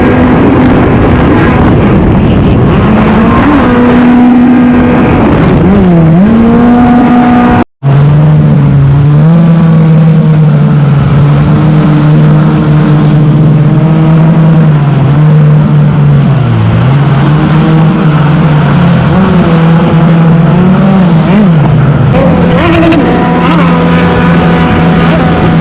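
Kommander GP1 stand-up jet ski engine running hard at speed over wind and water rush, its pitch dipping and coming back several times as the throttle is eased and reapplied. It cuts out briefly about 8 seconds in and resumes at a lower, steady pitch.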